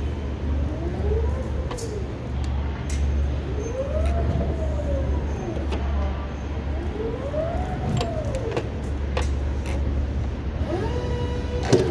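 Electric drive motor of a Crown order picker whining up and down in pitch as the truck speeds up and slows, over a steady low hum, with scattered clicks. It is running on freshly replaced load wheels, smooth with no clunking. Near the end a brief steady higher tone sounds.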